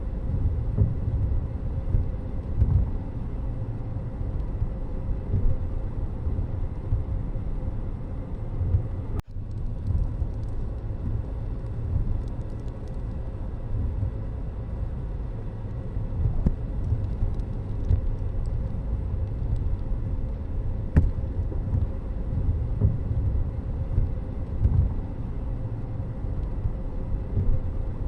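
Steady low rumble of vehicle road noise, with a brief dropout about nine seconds in.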